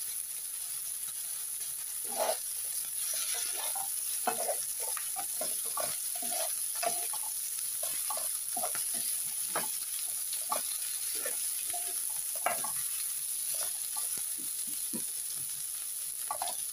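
Shrimp and vegetables sizzling in a nonstick frying pan while a spatula stirs and turns them, with frequent short, irregular clacks and scrapes of the spatula against the pan over a steady sizzle.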